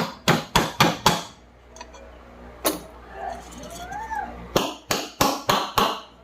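A hammer lightly tapping a new ball bearing into a ceiling fan's thin aluminium body. There is a quick run of five taps, a single tap midway, then a steady run of about four taps a second near the end.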